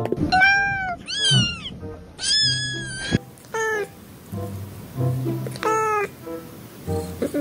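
A cat meowing, about six meows in a row, some drawn out and some short, over background music with a low bass line.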